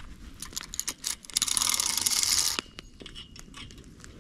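Campfire crackling with scattered pops. A louder rasping, rattling noise lasts just over a second, starting about a second and a half in.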